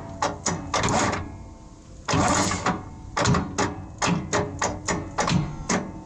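Irregular metallic clicking and tapping, about three or four sharp clicks a second, each with a short ring, and a longer rasping scrape about two seconds in: hand work on the exposed valvetrain of an old engine.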